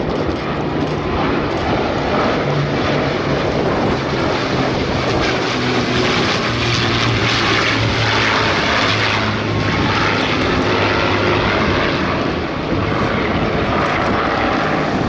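Avro Lancaster bomber's four Rolls-Royce Merlin piston engines, with two escorting single-engine fighters, droning steadily in a formation flypast. The sound grows fullest about halfway through as the formation passes overhead.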